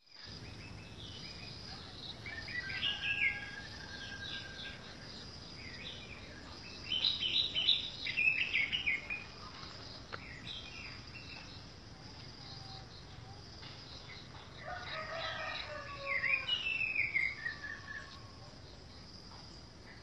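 Orange-headed thrush (anis merah) singing in three separate bouts of varied, rich whistled phrases, with pauses of several seconds between them.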